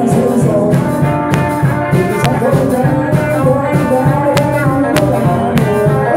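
Live band playing amplified music: electric guitars over a drum kit, with sharp drum and cymbal strikes.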